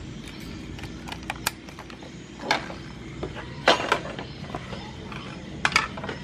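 Motorcycle engine being turned over on its electric starter for a spark check: a low steady whir with scattered sharp clicks, the loudest about two and a half, three and a half and five and a half seconds in.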